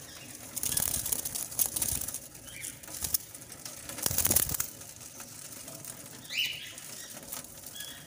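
Diamond dove brooding on a straw nest, flapping its wings and shifting on the nest as it is disturbed: several irregular rustling flaps, the loudest about four seconds in. A short high rising chirp comes about six seconds in.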